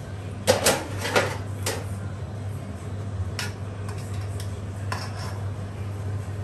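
Metal tongs clanking against a stainless-steel stockpot and steel tray as boiled pork belly is lifted out of the pot. Several sharp clanks come close together in the first two seconds, followed by a few lighter taps, over a steady low hum.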